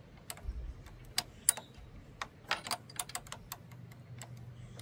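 Irregular sharp metallic clicks and taps of hand wrenches working on bolts, some in quick runs, as a fastener on a motorcycle's rear brake master cylinder is loosened.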